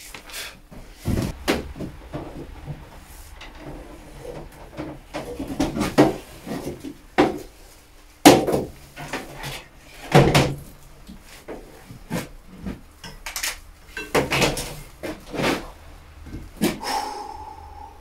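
Irregular wooden knocks, thuds and rustling as things are handled and moved about on a workbench, with several sharp knocks; the planer's motor is not running. A short steady tone sounds near the end.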